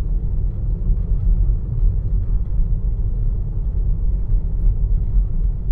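Steady low road rumble and tyre noise heard inside the cabin of a Tesla Model 3 driving at about 22 mph.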